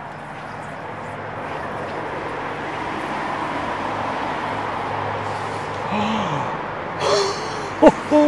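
Steady rush of river water, swelling slightly. Near the end comes a short splash and a single sharp knock, with a couple of brief grunts from the angler.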